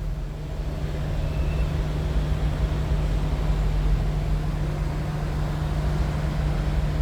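A steady low mechanical hum and rumble, like a motor running continuously.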